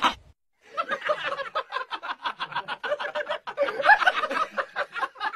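Laughter: a long, quick run of chuckles with no words, starting about half a second in after a brief silence.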